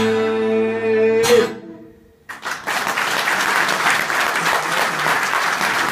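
An acoustic guitar's final chord is strummed, struck once more about a second in, and dies away. After a brief hush the audience breaks into steady applause.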